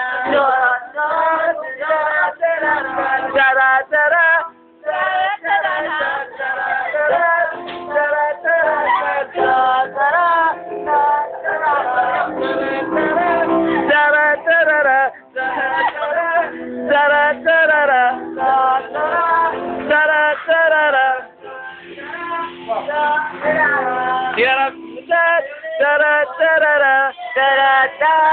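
A man's and a woman's voices singing a song loudly over music, in a casual group sing-along.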